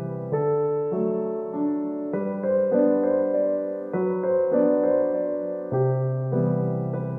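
Background instrumental music: a slow, gentle keyboard melody over held chords, with a new note or chord sounding about every half second to second.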